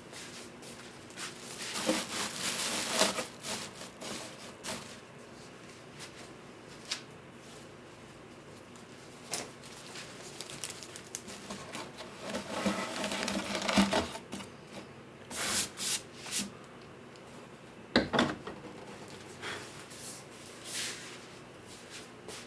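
Intermittent rubbing and scraping on wood in bursts, with scattered light taps and one sharp knock late on.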